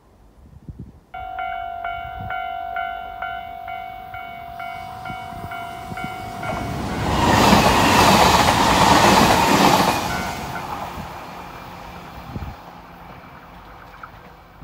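A level-crossing warning bell rings in a rapid, even ding-ding rhythm from about a second in. An electric express train then passes close by, loudest for a few seconds with wheel-on-rail clatter, and fades away.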